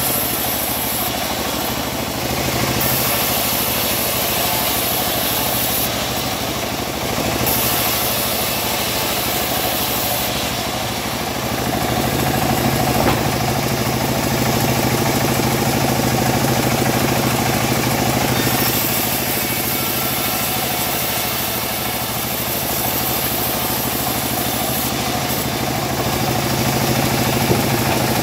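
Homemade bandsaw mill running steadily with a low, even drone, its blade sawing through teak as boards are fed through, the sound swelling a little as each cut goes on.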